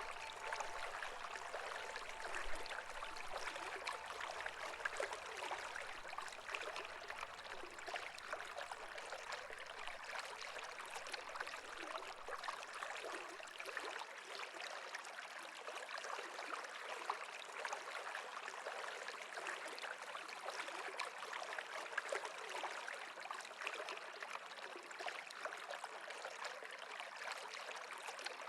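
Steady babbling of running stream water, a continuous rush with small irregular splashes and gurgles.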